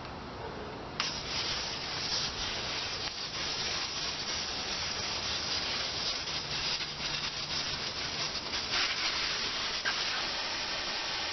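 Air hissing out of a 1935 Ford's tire through the valve stem with the valve core taken out: the tire deflating. The hiss starts suddenly about a second in and then runs on steadily.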